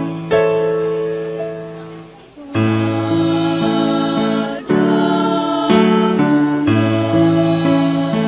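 Choir singing with keyboard accompaniment: sustained chords that change every second or two, with a brief dip about two seconds in before the next chord comes in.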